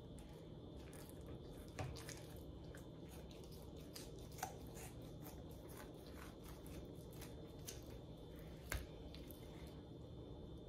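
Kitchen scissors snipping through a raw slab of pork spare ribs between the bones: faint, repeated short clicks of the blades closing, with louder snips about two, four and a half and nine seconds in.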